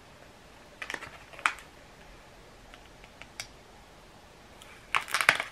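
Plastic pouch of powdered gecko diet being handled: a few scattered clicks and crinkles about a second in, some faint ticks, then a quick cluster of crinkling clicks near the end.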